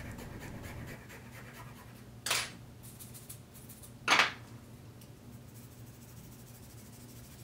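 Two short scrapes, about two seconds apart, as cane is scraped off the blade of a bassoon reed that plays too stiff, to make it freer-blowing. A faint steady hum runs underneath.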